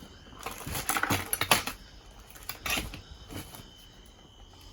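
Discarded household items being rummaged and moved about in a dumpster: a run of light clatters and knocks in the first second and a half, a couple more a little later, then quieter.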